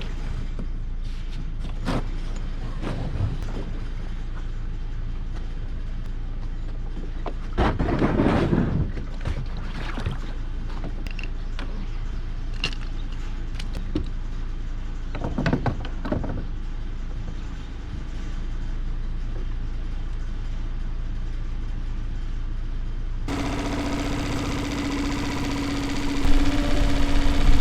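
An engine running steadily at idle, with scattered knocks and clunks and two louder noisy stretches, while a boat is unloaded at a ramp. Music comes in suddenly near the end.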